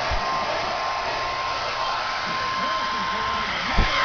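Handheld hair dryer running steadily: an even rushing of air with a constant motor whine.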